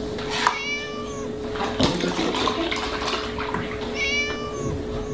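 A kitten meowing twice, two short calls about three seconds apart, over a steady low hum. Milk splashing as it is poured into a plastic tub runs under the second meow.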